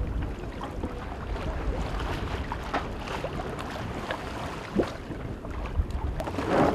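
Wind buffeting the microphone and water washing along the hull of a sailing yacht under way, with a sharper slap about five seconds in and a louder rush of water just before the end.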